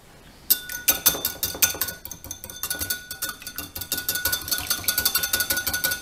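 Wire whisk beating an egg in a ceramic bowl, rapid metal-on-ceramic clinking at several strokes a second. It starts about half a second in, with a faint ringing from the bowl under it.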